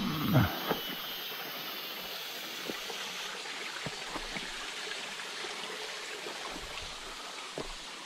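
Creek water running steadily over stones, with a brief low thump near the start and a few light knocks of footsteps on rocks and gravel.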